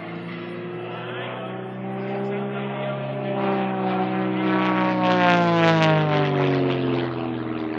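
Pitts aerobatic biplane's piston engine and propeller flying past, getting louder to a peak about five seconds in, with the pitch rising and then dropping as it goes by.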